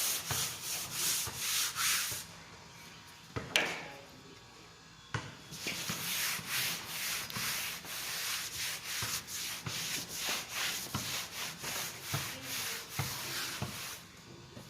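An eraser rubbing back and forth across a board to wipe off drawings, in quick scraping strokes about three a second. The strokes stop for about three seconds, with a single tick, then start again and carry on.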